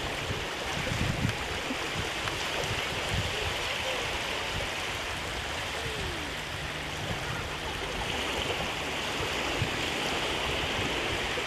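Shallow sea water washing at the shoreline, a steady rushing wash.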